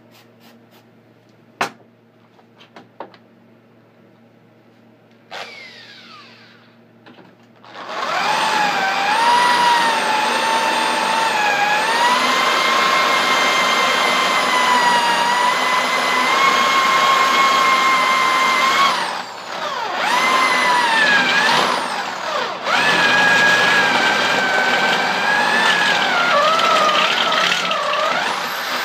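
Corded electric hand drill boring into steel with a high-speed-steel step drill bit: a loud, steady motor whine that sags and recovers in pitch as the bit loads up, cut off briefly twice. A few faint clicks come before the drill starts, about eight seconds in.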